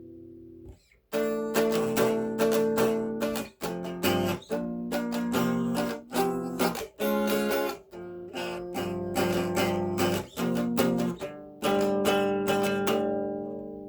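Guitar playing an instrumental passage of struck chords, each with a sharp attack and left to ring, with no singing. A chord dies away at the start and there is a moment's silence about a second in before the playing starts again; the playing stops abruptly at the end.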